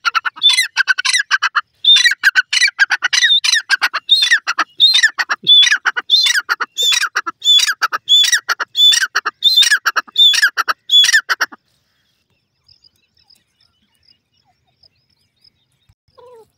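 Grey francolin (teetar) calling loudly: a fast series of shrill, repeated notes that stops abruptly about two-thirds of the way through.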